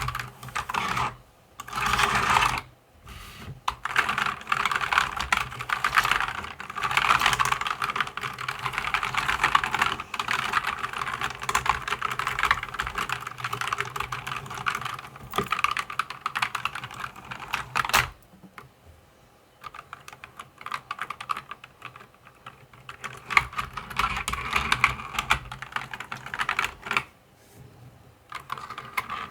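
Mechanical keyboard being typed on quickly, a dense clatter of key clicks. About two-thirds through it thins to scattered single key presses, then picks up again before a brief pause near the end.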